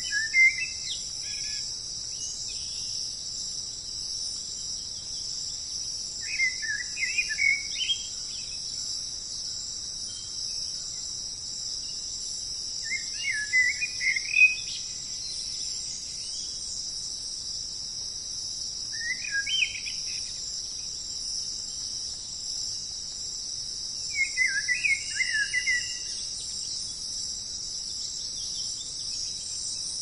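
Nature ambience: a steady high-pitched insect chorus, with short bursts of bird chirping about every six seconds, five in all.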